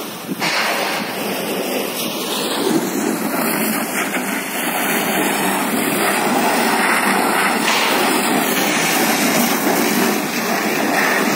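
Steady rushing hiss of a fire hose jet spraying water onto a smoking shed roof.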